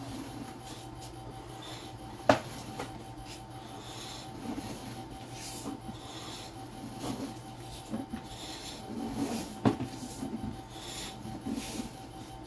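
Sewer inspection camera and its push cable being pulled back through the drain pipe, rubbing and scraping continuously, with two sharp knocks and a steady low electrical hum under it.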